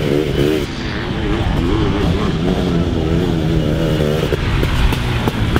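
Motocross sidecar outfit's engine revving hard, its pitch rising and falling as the throttle is worked around the track.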